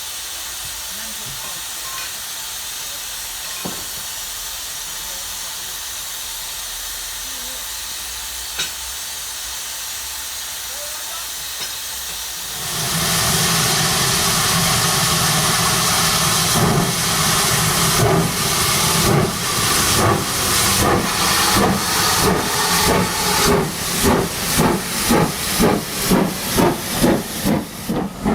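Steam locomotive sound from a sound-fitted model loco: a steady hiss of steam, then about twelve seconds in a sudden louder rush of steam. Exhaust chuffs then begin and quicken from about one a second to about two a second as the engine pulls away.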